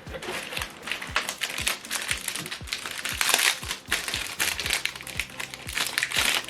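Background music with a steady beat, with crinkling and clicking handling noises over it.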